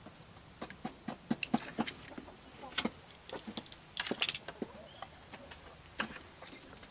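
Irregular light clicks and taps from handling the power-window wiring connector inside the door of a 1991 Ford F-150, with no window motor running.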